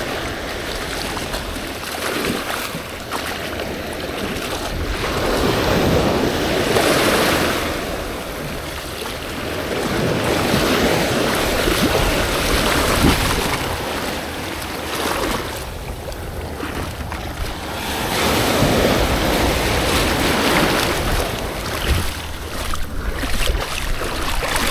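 Surf breaking and washing up a beach, rising and falling in long swells every several seconds, with wind buffeting the microphone.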